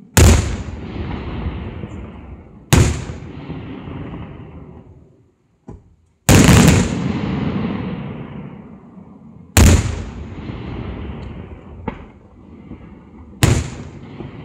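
Aerial firework shells bursting: five loud booms two and a half to four seconds apart, each followed by a rumbling tail that fades over a few seconds, with a couple of smaller sharp cracks in between.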